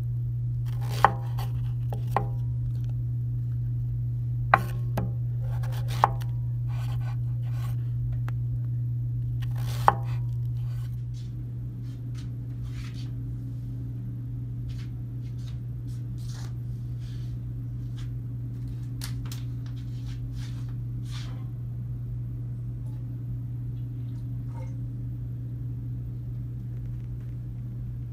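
Knife chopping through a zucchini onto a wooden cutting board: about five sharp strikes in the first ten seconds over a steady low hum. After that only the hum and a few faint clicks remain.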